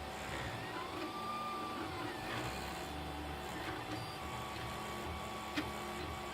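3D printer's stepper motors whining as the print head moves, their tones sliding up and down in pitch as it changes speed and direction, with a single sharp click near the end.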